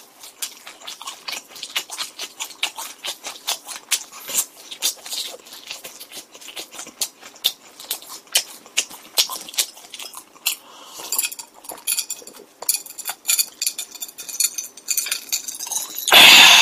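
Close-miked chewing of pizza: a dense, irregular run of wet mouth clicks and smacks. Near the end a loud slurp from a glass of drink.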